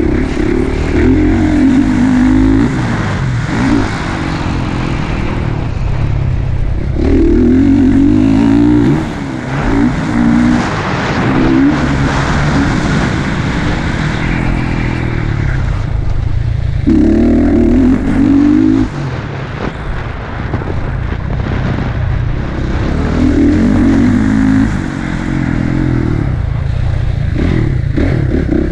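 Motocross dirt bike engine heard from on board, revving hard in several loud full-throttle stretches, the revs dropping back between them as the throttle eases off.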